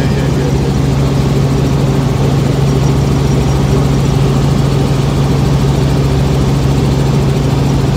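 Helicopter engine and rotor running steadily in flight, heard from inside the cabin: a loud, even low hum with no change in pitch.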